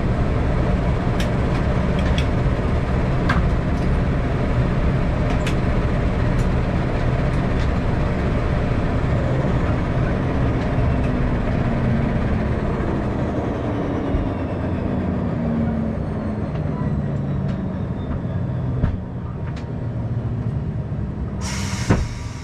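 Cabin noise of a Dash 8-100 turboprop on the ground after shutdown: a steady engine drone with a whine that falls slowly in pitch as the engine spools down and the propeller slows nearly to a stop. A brief loud hiss comes near the end.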